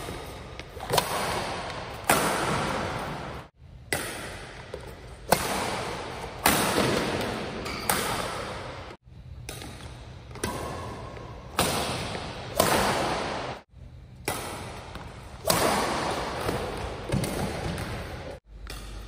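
Badminton rackets striking a shuttlecock in a rally: a sharp hit about every second, each with a long echo from a large hall. The sound cuts out briefly four times.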